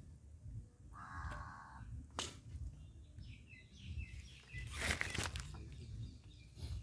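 A crow caws once, about a second in, over a steady low outdoor rumble; later comes a short rustling burst.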